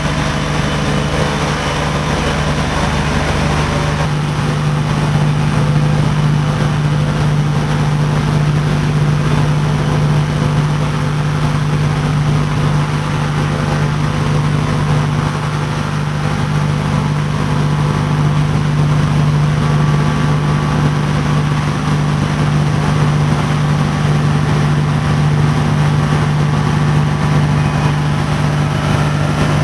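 Steady drone of a B-25 Mitchell's twin radial engines, heard from inside the bomber in cruising flight, with a strong low hum that holds its pitch. The deepest rumble drops slightly about four seconds in.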